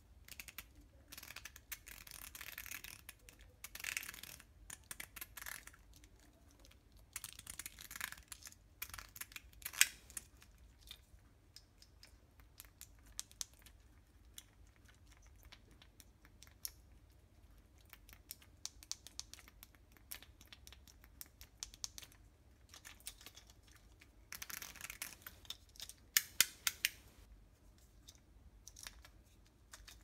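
Plastic fidget cube worked by fingers: scattered small clicks from its buttons and switches, with a few runs of rapid fine clicking or rubbing as its dials and gears are rolled. The sharpest single click comes about ten seconds in, and a quick cluster follows near the end.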